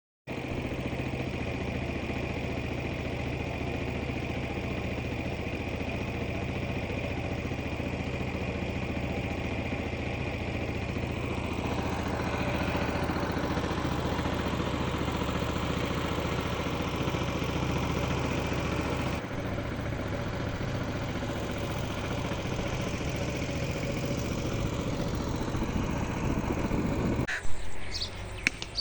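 An engine running steadily at an even speed. It cuts off abruptly a second or so before the end, and short high bird calls follow.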